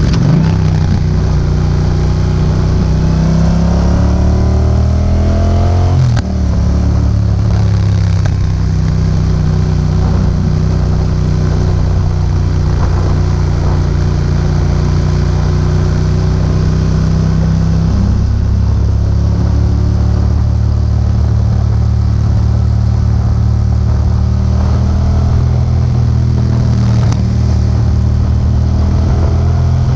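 Yamaha MT-07's parallel-twin engine through an Akrapovic exhaust, ridden under load. It revs up over the first six seconds, drops sharply at a gear change, then holds fairly steady revs with another change about eighteen seconds in.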